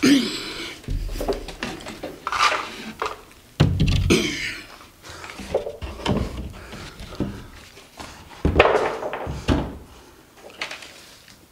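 A large sheet of cement backer board being handled and set against wooden wall studs: irregular thumps and scrapes as it knocks and slides against the framing, the loudest near the start, about four seconds in and about nine seconds in.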